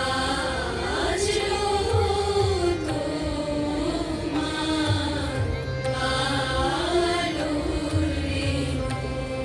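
Indian classical music: a melodic line gliding up and down in slow phrases over tabla strokes.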